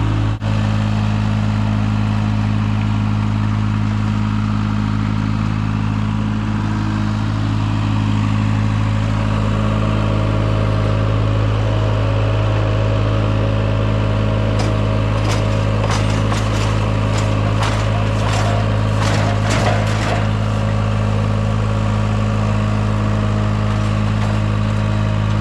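Engine idling steadily. About halfway through, a string of sharp knocks and clanks comes over some five seconds.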